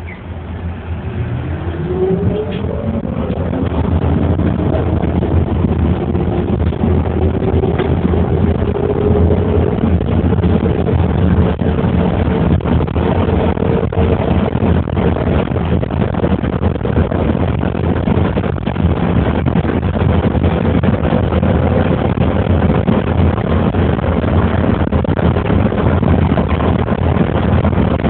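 A road vehicle pulling away from a standstill and accelerating, heard from inside: a whine rises in pitch over the first several seconds and then levels off. A steady rumble and road noise continue as it drives on.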